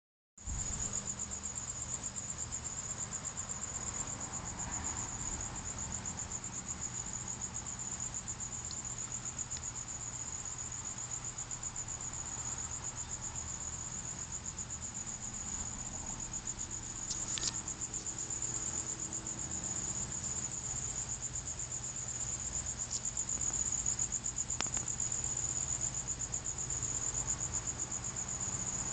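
A cricket trilling continuously, a fast, even high-pitched pulse that never pauses, with a couple of faint clicks over it.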